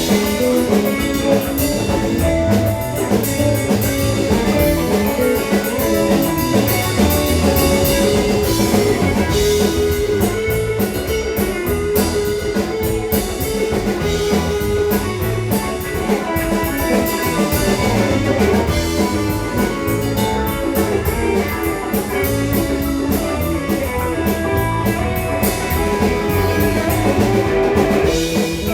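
A live rock band playing a steady groove: electric guitar over drum kit and bass.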